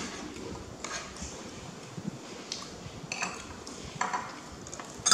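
Metal spoons scraping and clinking against a ceramic plate of rice, a handful of short separate clinks.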